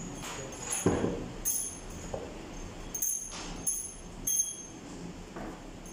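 Steel pushrods clinking as they are handled and slid down into their bores in a Toyota 13Z diesel engine's cylinder head. Several sharp metallic clinks, each with a brief ring.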